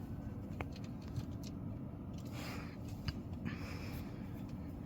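Faint steady low hum with light rustling and a few soft clicks, and no warning siren sounding.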